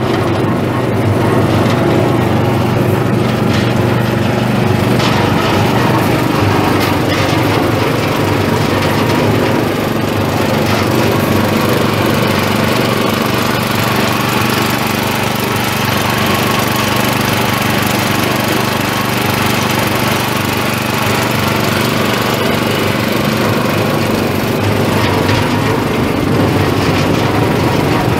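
Stone 655PM mortar mixer running, its 1.5 HP Baldor Reliance electric motor giving a loud, steady mechanical hum that starts suddenly and holds even.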